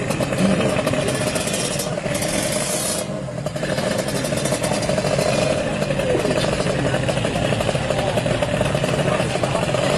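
Kawasaki Ninja R drag bike's two-stroke engine running steadily.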